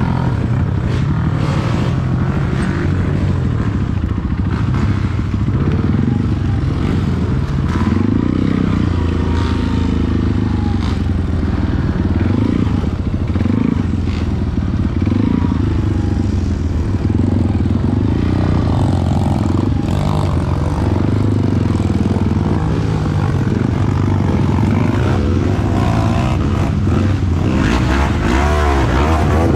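Honda CRF dirt bike's single-cylinder four-stroke engine running at low speed, its revs rising and falling as it works over rough dirt ground.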